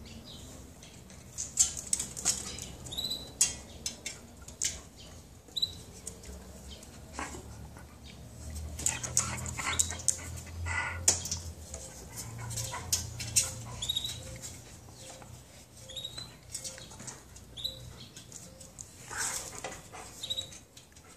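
German shepherd growling and huffing in play while mouthing at a cat. The growl is heaviest in the middle stretch, with brief high squeaks and scattered sharp clicks and knocks throughout.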